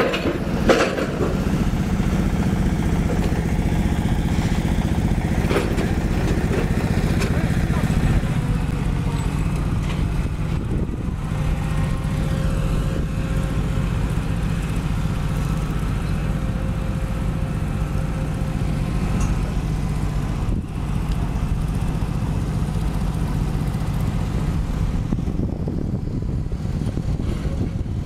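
Kobelco 7055 crawler crane's diesel engine running steadily under load as it hoists a long rebar cage upright. A few metallic knocks of the rebar near the start.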